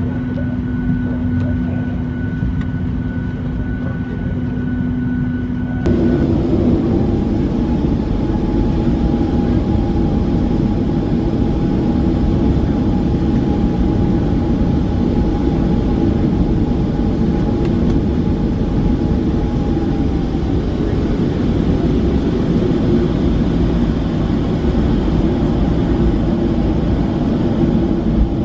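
Cabin noise of a Boeing 737-700 heard from a window seat: a steady hum with a thin high tone while parked at the gate, switching suddenly about six seconds in to the louder, steady rumble and whine of its CFM56-7B jet engines at low power as the plane taxis.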